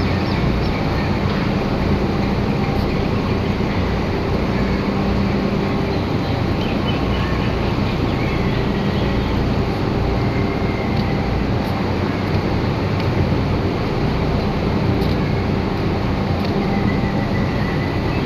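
Steady low mechanical rumble, like a vehicle running, with a faint hum.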